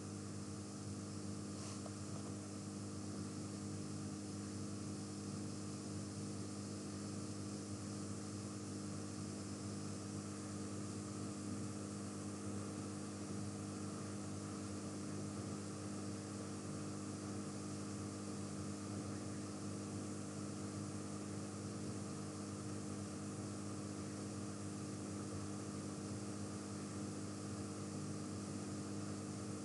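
Steady electrical hum with a few constant low tones under an even hiss, the background noise of the recording setup. There is a faint click about two seconds in.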